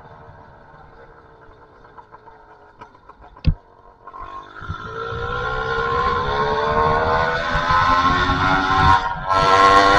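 Two-stroke motorbike engine with an aftermarket expansion pipe, running low at first, with one sharp knock about three and a half seconds in. From about four seconds in the exhaust note climbs slowly in pitch and grows loud as the bike accelerates, breaks off briefly near the end, then comes back loud.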